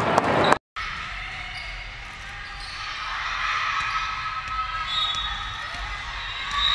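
Volleyball game in an echoing gym: players' shouts and cheers break off abruptly with a brief silence, then quieter hall noise follows, with calls from players and thuds of the ball being played.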